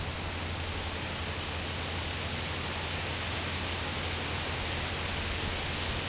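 Breeze rushing steadily through leafy branches, an even hiss that stays level throughout.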